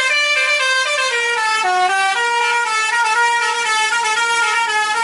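Tour bus telolet horn, a multi-trumpet musical air horn, playing a loud tune: several tones sound together and step down and back up through a melody, then cut off suddenly at the end.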